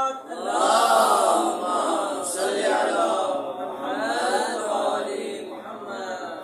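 Several voices chanting a melodic refrain together in long rising-and-falling phrases. They come in about a third of a second in.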